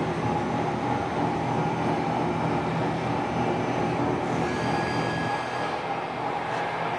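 Industrial drilling machine and surrounding factory machinery running with a steady hum, joined by a faint high whine about four seconds in.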